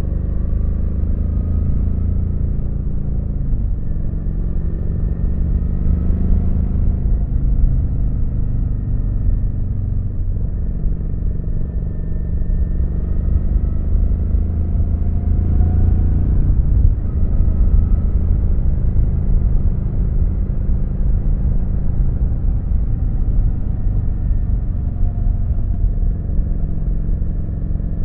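Kawasaki Vulcan 900's V-twin engine running under way, its low pitch rising and falling with the throttle, with a few brief dips.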